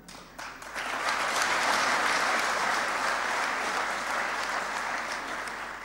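A large seated audience applauding, swelling quickly about a second in, then fading toward the end.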